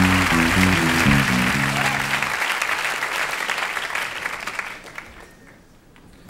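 Background music: the last notes of a song end about two seconds in, leaving a crackling, hissing wash that fades out over the next few seconds.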